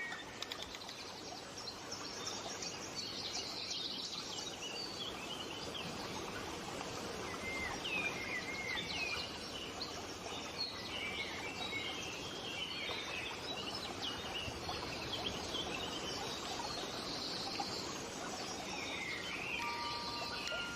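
A chorus of songbirds chirping and twittering over a steady outdoor hiss, many short quick calls overlapping. A few music-box notes come in near the end.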